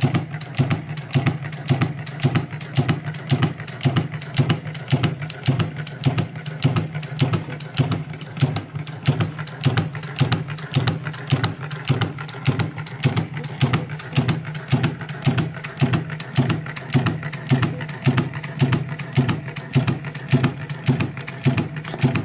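British United Shoe Machinery Co. A1 leather sewing machine running steadily and stitching, an even mechanical clatter of about three strokes a second over a steady low hum.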